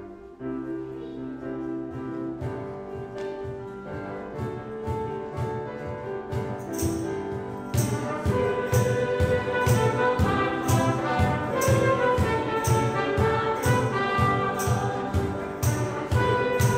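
A church worship band starts a song. Sustained keyboard chords come first. About eight seconds in the music grows louder as a steady cajon beat, acoustic guitars and singing voices join.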